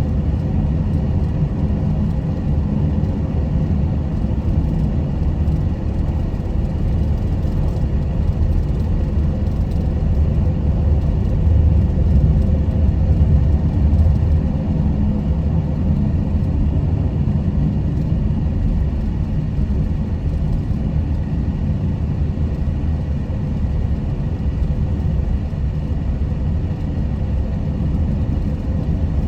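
Minivan driving on a country road, heard from inside the cabin: a steady low rumble of engine and tyre noise that swells slightly about halfway through.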